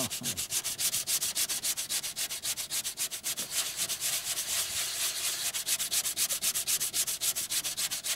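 80-grit sandpaper on a hand sanding block rubbing back and forth over cured Bondo body filler on a car door, a steady scratchy hiss in quick, even strokes of several a second, knocking the filler down level.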